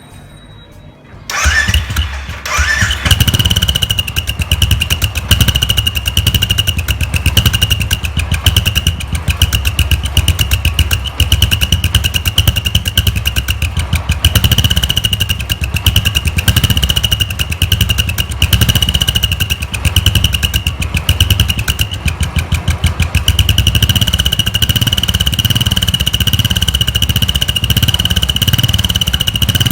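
Royal Enfield Bullet's single-cylinder engine starting about a second in and then running, with a turbo whistle fitted in its stock silencer. The whistle adds a steady high tone over the exhaust beat.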